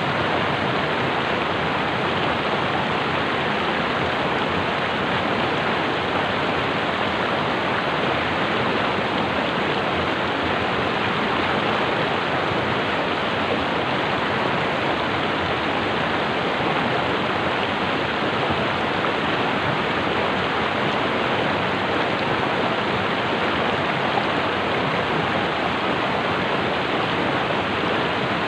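Water of a small stream rushing steadily past, a constant loud hiss with no pauses.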